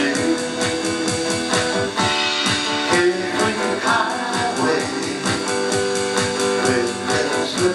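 Instrumental passage of a guitar-and-drums song: strummed guitar over a steady electronic drum-kit beat.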